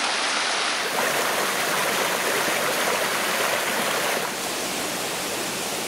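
Cascading water rushing steadily, changing slightly in tone about a second in and again a little after four seconds.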